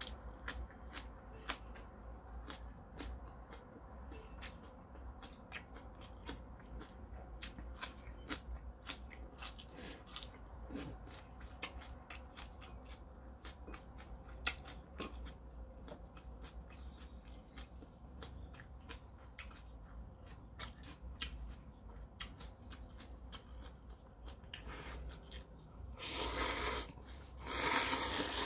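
Close-miked eating of ramen: chewing with many small wet mouth clicks, then about 26 seconds in, loud noodle slurping in a few long pulls.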